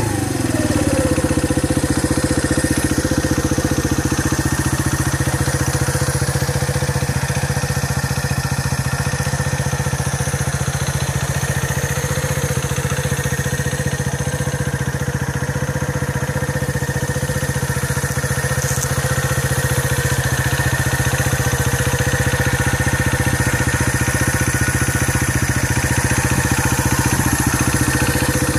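Keeway RKV 125 motorcycle's single-cylinder four-stroke engine idling steadily just after a start, its revs dropping from the start-up flare within the first second and then holding even.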